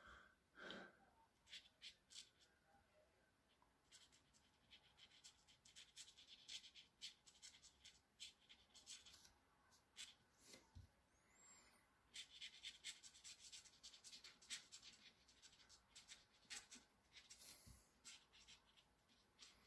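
Faint scratching of a black felt-tip pen on paper, in quick short strokes that come in runs with a short pause near the middle.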